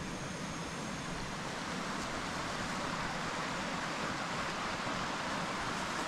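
Steady rushing of a mountain river's flowing water, an even noise without breaks.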